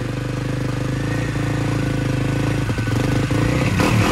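KTM 450 SX quad's single-cylinder four-stroke engine running at idle. It grows a little louder from about a second in, and a short rev starts near the end.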